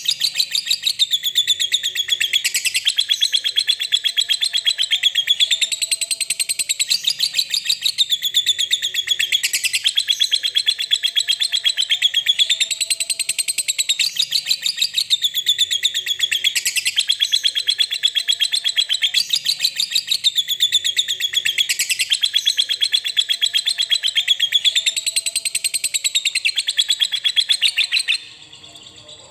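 Lovebird giving a long, unbroken ngekek: a rapid, high-pitched chattering trill that swells and dips about every two seconds, then cuts off suddenly near the end. This long chatter is the call played as a lure to set other lovebirds chattering.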